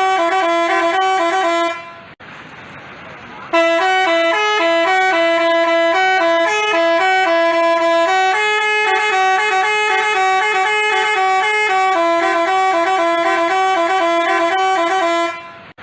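Multi-tone telolet bus horn of the basuri type playing a quick melody of stepped horn notes. It breaks off for about two seconds near the start, then plays on.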